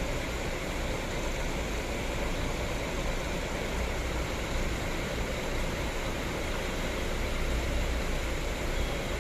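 Scania K360IB bus's diesel engine running steadily close by: a low rumble under an even hiss, with no revving.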